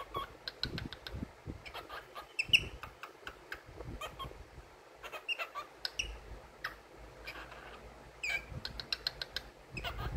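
Cockatiel giving a few short chirps that fall in pitch, the loudest about two and a half seconds in and another near the end, among scattered soft clicks.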